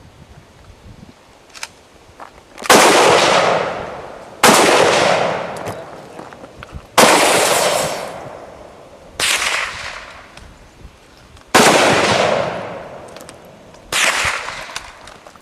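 Six gunshots fired about two to two and a half seconds apart, each a sharp crack that trails off over a second or two.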